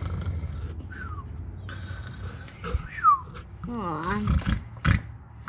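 A ginger domestic cat purring right up against the microphone, a low steady rumble, with rustling as its fur brushes the camera. There are two short high squeaks and a brief wavering voice-like sound about four seconds in.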